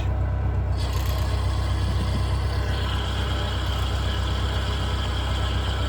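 Vehicle engine idling with the manual transmission in neutral and the clutch released, the transmission making its noise: a rushing whir comes in about a second in and a steady high whine joins near halfway. The noise goes away with the clutch pressed in; the owner has been told it is a pilot bearing or an input shaft bearing.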